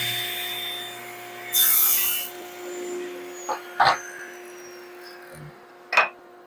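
Table saw running and ripping a narrow strip of oak, with one loud cut about a second and a half in, then the blade winding down with a slowly falling whine. A few sharp knocks of wood pieces being handled follow near the middle and the end.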